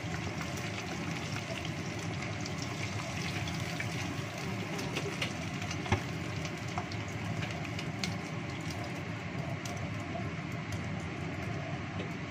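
Chicken wings deep-frying in a small pot of hot oil, sizzling and crackling steadily as a wooden spatula stirs and lifts them. There is one sharp knock about six seconds in.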